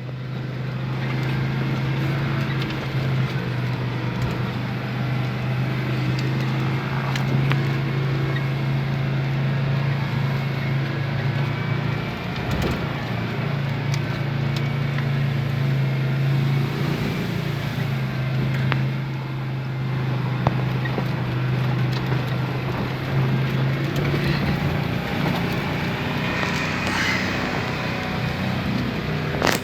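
Off-road vehicle engine running at a steady drone while driving along a rough track, with occasional short clicks and knocks.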